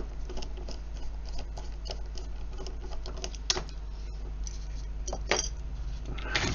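Irregular small clicks and taps of a screwdriver and fingers working the case screws out of a small brass lever lock and opening its case, with a couple of sharper clicks near the middle and about three quarters through. A steady low hum lies under it.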